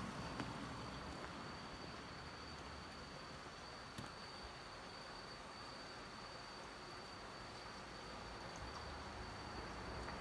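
A night insect trilling steadily on one high pitch over faint outdoor hiss, with a single click about four seconds in.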